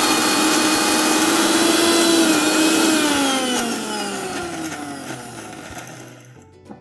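Electric mixer grinder running at full speed, grinding a wet masala paste in its steel jar. About three seconds in it is switched off, and the motor winds down with a falling hum until it stops.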